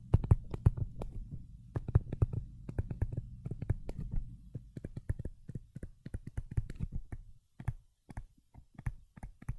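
Stylus tapping and scratching on a tablet screen during handwriting: a rapid, irregular run of small clicks over a low rumble, the rumble dropping away and the clicks thinning out after about seven seconds.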